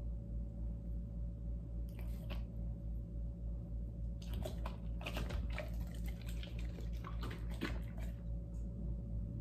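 American Staffordshire Terrier/pit bull licking and chewing at a treat held in a hand: scattered short mouth clicks, a few about two seconds in and a dense run through the middle, over a steady low hum.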